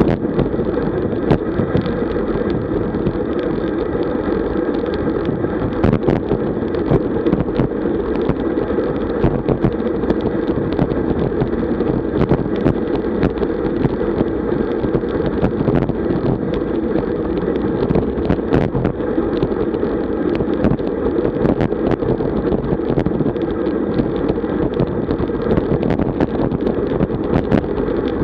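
Steady wind rush on the microphone of a camera travelling with a road bike at about 45 km/h, together with road noise and scattered small clicks and knocks.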